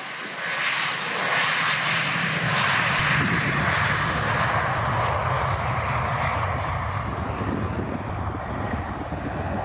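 Airbus A320-family airliner's twin jet engines running at takeoff power during the takeoff roll, a loud roar. The noise swells about half a second in, and a deep rumble builds from about three seconds in.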